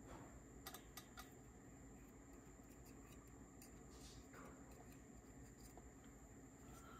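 Near silence: faint room tone with a few light clicks, about a second in and again around three to four seconds in, from a small screwdriver and small parts being handled on a cassette mechanism.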